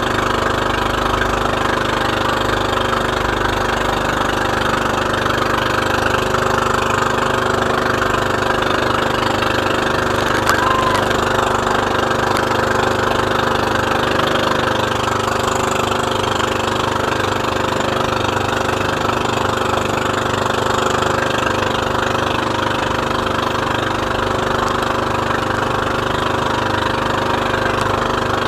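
Outrigger motorboat's engine running steadily as the boat travels, an even drone with no change in speed.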